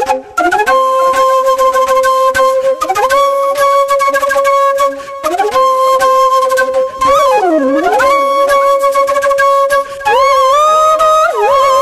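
Background music led by a flute, holding long steady notes and sliding between pitches, with a wavering bend around the middle and several short glides near the end.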